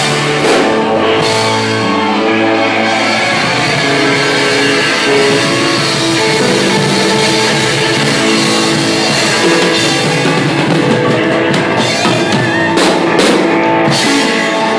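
Live rock band playing loudly: electric guitars, bass and drum kit, with cymbal crashes near the start and again near the end.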